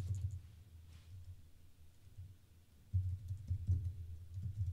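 Typing on a computer keyboard: scattered keystrokes with dull low thuds under them, starting with a sharp click and getting busier for the last second and a half or so.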